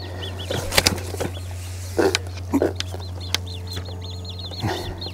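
A small bird chirping in a quick repeated series over a steady low hum, with a few sharp knocks in the first half.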